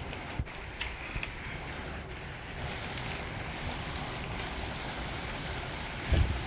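Heavy rain falling steadily with a constant hiss. Near the end there is a brief low thump.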